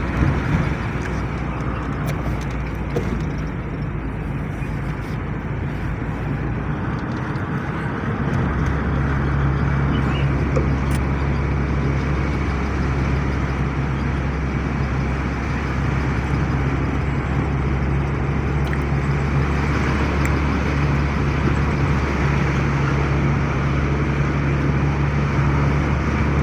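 A moving vehicle's engine running steadily with tyre and road noise. About eight seconds in, the engine note steps up in pitch and gets louder, then holds.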